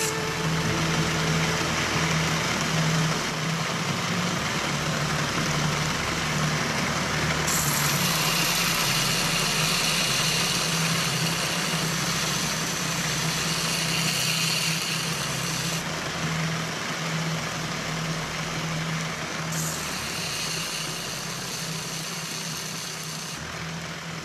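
Small DC motor of a 3D-printed belt sander running steadily with a low hum, the belt whirring as a steel screwdriver tip is held against it and ground with a hiss. The hiss shifts in brightness a few times as the tip is worked on the belt.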